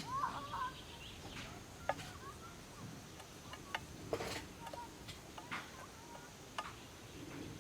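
Birds calling: a few quick warbling chirps at the start, then scattered short, sharp call notes every second or so over a faint steady high hiss.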